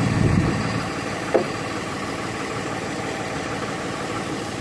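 1998 Chevrolet Malibu's engine running at a steady idle, with one brief sharp sound about a second and a half in.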